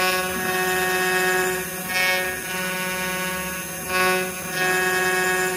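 A 1.5 kW water-cooled CNC router spindle whines steadily as a quarter-inch ball end mill cuts aluminum. The cutting noise swells louder about every two seconds as the tool works through each pass.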